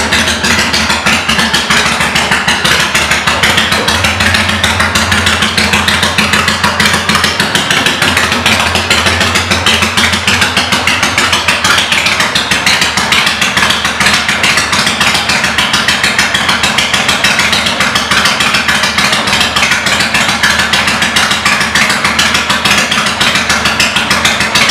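1995 Kawasaki Vulcan 800's V-twin engine idling steadily through aftermarket exhaust pipes, a fast, even pulsing exhaust note.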